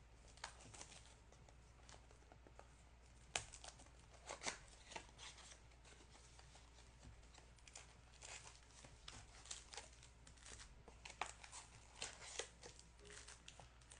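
Faint rustling, crinkling and small taps of trading card packs and their cardboard box being handled as a new mini box is opened and its packs rearranged.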